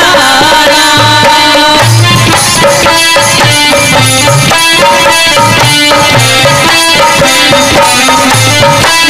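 Instrumental break of an Indian-style song: a melody of steady held notes over a percussion rhythm with deep bass beats.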